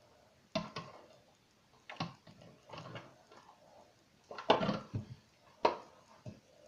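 Fluffy slime, loosened with a little hot water, squeezed and kneaded by hand: irregular wet squelches and pops, the loudest a little past the middle.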